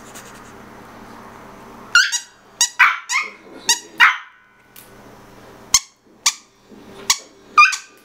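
Smooth-coat Chihuahua puppies yapping in play: a quick run of short, high-pitched yips starts about two seconds in, then single yips come every half second or so.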